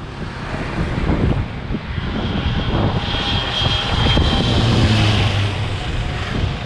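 CASA twin-turboprop military transport passing low overhead on its landing approach, engines and propellers getting louder to a peak about four to five seconds in. A high steady whine rides over the lower drone of the propellers.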